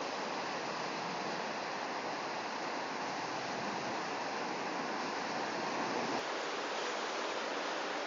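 Steady rushing of water falling from a dam spillway, an even noise with no break.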